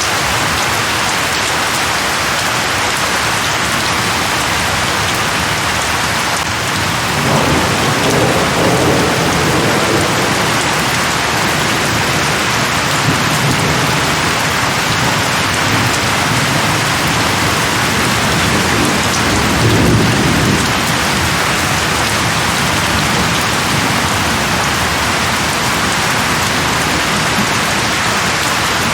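Steady heavy rain falling on leaves, with low rolls of distant thunder rumbling in about seven seconds in and again, a little louder, around twenty seconds in.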